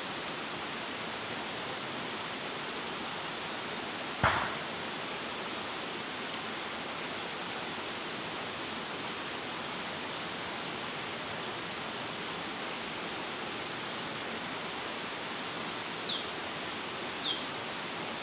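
Steady, even hiss of a forest stream and its surroundings. A single sharp sound comes about four seconds in. Near the end a bird gives short, high chirps, each falling in pitch, about a second apart.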